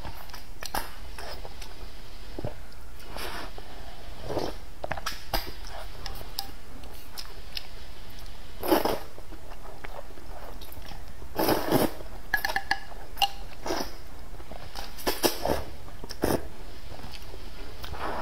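Eating flat rice noodles in spicy broth: slurping noodles, chewing, and short slurps of broth sipped from the bowl, coming every second or few seconds, the loudest about halfway through.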